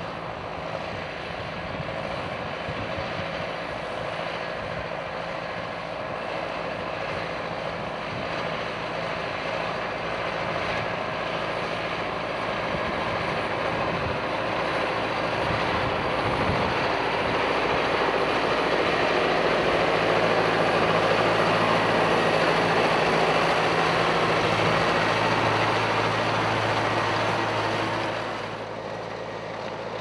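Claas Arion 410 tractor's four-cylinder diesel engine working steadily under load as it pulls a reversible plough through the ground. It grows louder over the first two-thirds and drops away suddenly near the end.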